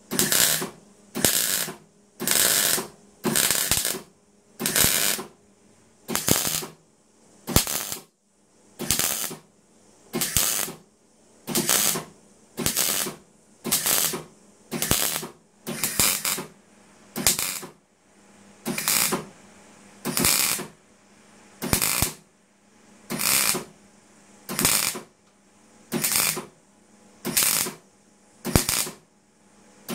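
MIG welder arc crackling in short bursts, about one a second and each about half a second long, as brackets are stitch-welded onto a thin steel motorcycle fuel tank. A faint low hum carries on between the bursts.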